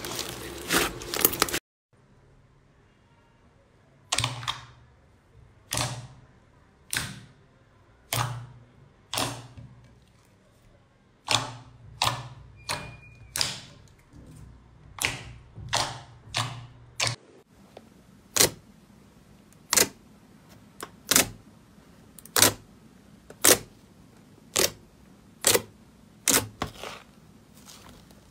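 Slime being squeezed, folded and poked by hand, giving sharp popping clicks about once a second. It opens with a brief dense crackle as fluffy slime is kneaded.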